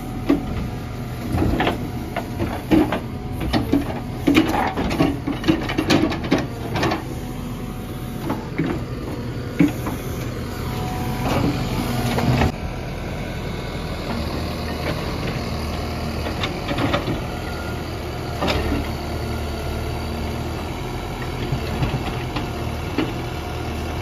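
Shinrai backhoe loader's diesel engine running steadily, with frequent clanks and knocks as the backhoe works the soil during the first half; after a sudden change about halfway through, the engine runs on with only occasional knocks.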